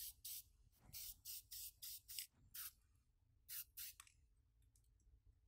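Aerosol spray paint can sprayed in about ten short, quick hisses through a mesh stencil, the bursts stopping about four seconds in.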